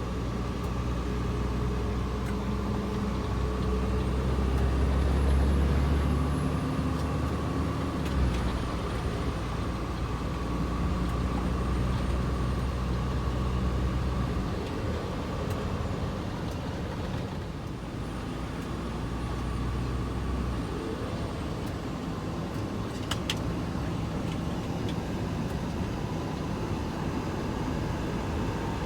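A truck driving, with engine and road noise heard from inside the cab. A low, steady engine drone is strongest in the first half and eases off partway through.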